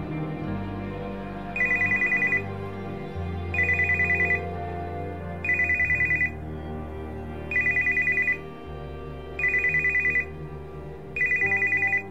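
Electronic telephone ringing in short warbling trills, six rings about two seconds apart starting about a second and a half in, over soft, slow background music.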